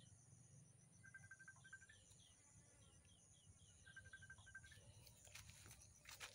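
Near silence: faint outdoor ambience with distant birds chirping, runs of short repeated notes and a series of brief falling chirps, and a few faint clicks near the end.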